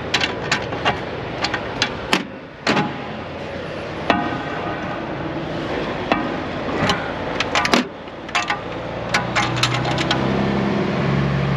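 Metal clinks and knocks as the clamps on a tanker trailer's dome lid are worked by gloved hands, setting the lid so it sits cracked open for venting. One ringing clang about four seconds in. A low steady hum comes up near the end.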